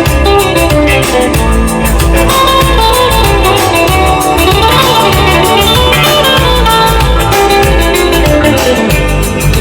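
Loud instrumental dance music with electric guitar lines, strong bass and drum kit, played through a large sound system during its sound test. The song is African-style, with sung lines in Nigerian Pidgin on either side of this guitar break.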